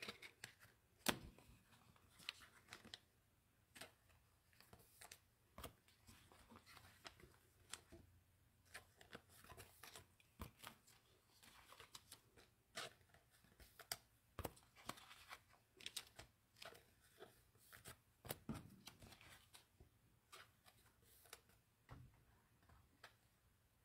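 Faint, scattered crinkles and clicks of trading cards and a plastic cello pack wrapper being handled, with one sharper click about a second in.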